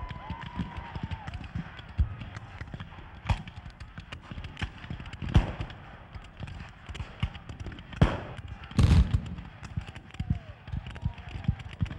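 Scattered black-powder musket fire, sharp cracks at irregular intervals, with one heavier, longer blast about nine seconds in. Men shout and yell near the start and again near the end.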